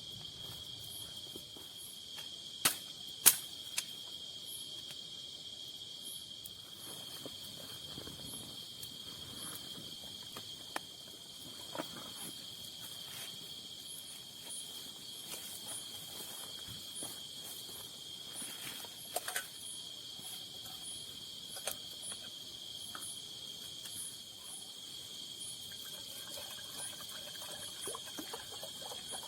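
Night insect chorus in tropical forest: a steady high-pitched drone with a fainter chirp pulsing about once a second above it. A few sharp clicks or cracks cut through, the loudest cluster about three seconds in and single ones later.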